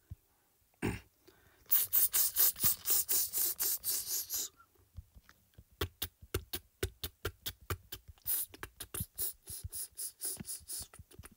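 A rapid run of sharp clicks, about six a second, after a single thump; they pause briefly, then come back scattered and quicken again near the end.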